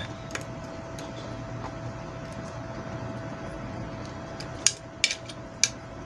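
A few light metallic clicks and taps from a hand tool working the wire terminals on a metal ceiling fan motor. Two faint ones come early and three sharper ones near the end, over a faint steady hum.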